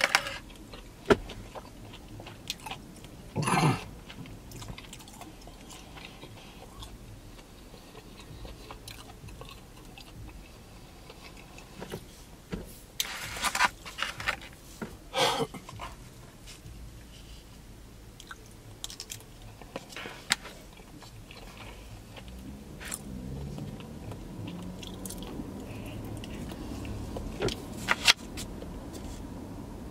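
Close-up chewing and biting of takeout food, vegan fried chicken among it, with a few short, sharper crunches or knocks scattered through, the loudest about three and a half, thirteen, fifteen and twenty-eight seconds in.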